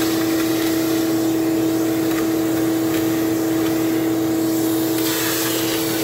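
Shop vac motor running steadily with a constant whine and rush of air, its hose sucking spotted lanternflies off a tree trunk.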